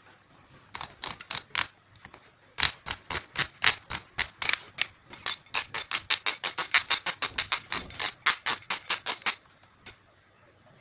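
Keyless drill chuck turned by hand, its sleeve ratcheting in rapid sharp clicks, about five or six a second, in three spells with short pauses as the jaws open to release a hex key.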